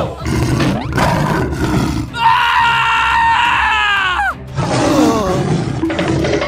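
Dinosaur roar sound effects, several in a row, over background music; the longest roar comes about two seconds in and drops in pitch as it ends.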